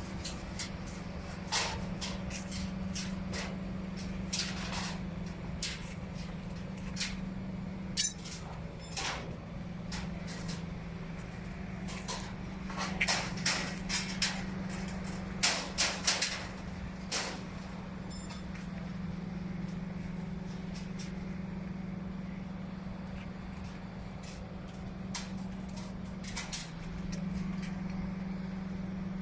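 A machine's steady low hum, with irregular sharp clicks and knocks over it that come thickest about halfway through.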